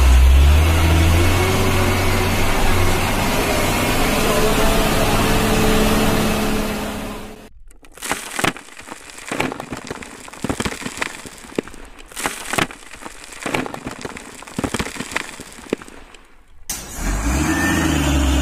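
A truck engine sound with a low steady drone cuts off abruptly after about seven seconds. Gravel and soil are then poured into a plastic toy dump truck's tipper body, the stones clattering in many small irregular clicks for about nine seconds. The engine drone cuts back in near the end.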